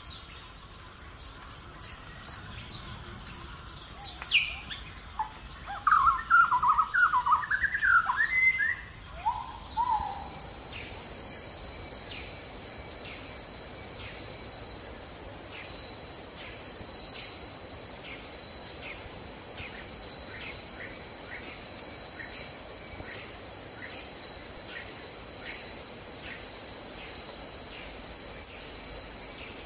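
Insects trilling steadily at a high pitch in an even pulsing rhythm, with a bird chirping a quick run of notes from about four to ten seconds in.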